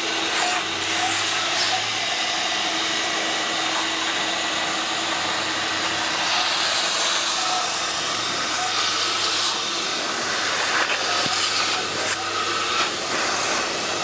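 Spray-extraction upholstery cleaner running, its hand wand drawn over seat upholstery: a steady suction hiss over a low motor hum as it sprays cleaning solution and vacuums it back up.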